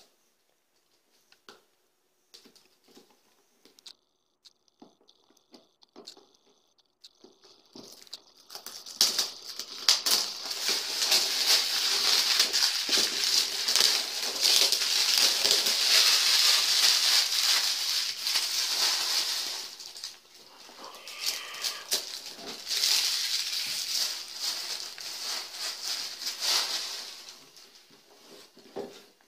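Plastic packaging crinkling and rustling as a new angle grinder is unwrapped: a few faint handling clicks at first, then loud, dense crackling from about eight seconds in that eases briefly around two-thirds of the way through and dies away near the end.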